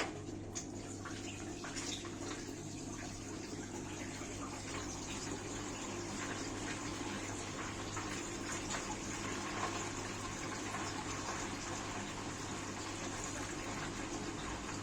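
Washing machine filling with water: water rushing steadily into the drum with a low hum, starting abruptly.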